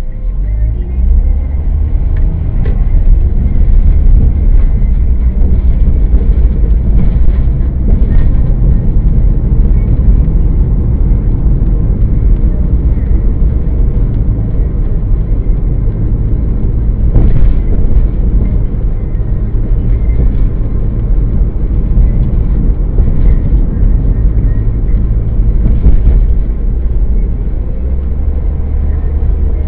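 Car driving, recorded by a dashcam inside the cabin: a steady low rumble of engine and road noise, with a few faint knocks.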